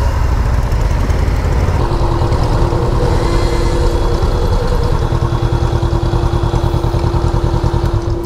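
Motorcycle engine running at idle, with an even pulsing beat in the second half.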